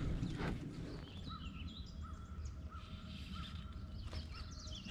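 Birds calling outdoors: one short note repeated about every two-thirds of a second, with clusters of higher chirps near the start and near the end, over a faint low rumble.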